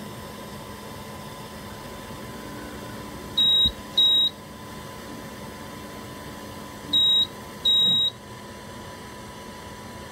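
Two pairs of short, high electronic beeps, a few seconds apart, over a steady machine hum.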